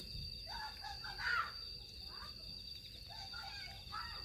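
Crickets chirping steadily in a continuous high-pitched pulsing chorus, with faint voices now and then.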